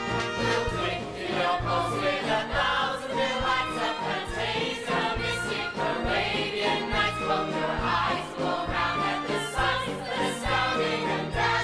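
Ensemble singing a swing-style show tune over a band with a steady beat.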